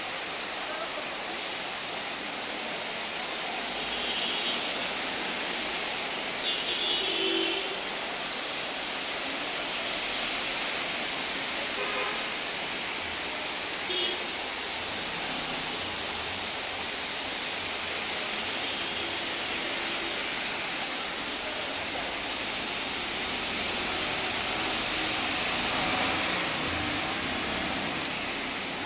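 Steady, continuous rainfall, an even hiss throughout. A few brief, faint high-pitched sounds come through it a few seconds in, again a little later, and about halfway through.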